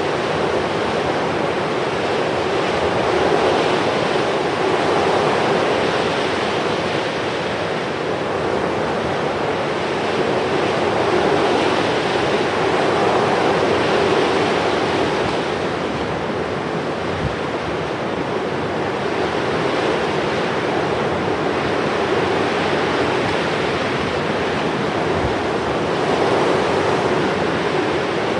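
Steady rushing outdoor noise, swelling and easing slowly every few seconds.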